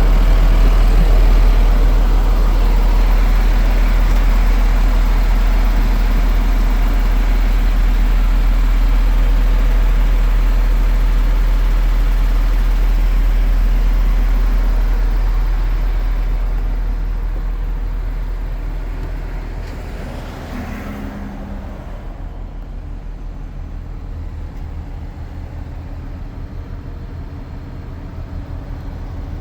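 MAN TGX 400 truck's diesel engine running with a deep, steady low rumble. It grows quieter about two-thirds of the way through.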